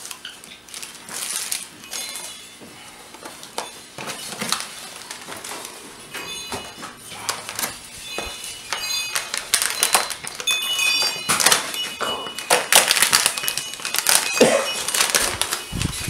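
Rustling and crinkling of cardboard packaging and plastic parts bags being handled, with scattered light clicks, a few short high squeaks and a low thump near the end.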